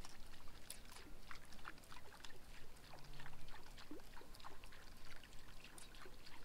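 Soft, irregular water trickling and small plinking splashes, with scattered light ticks.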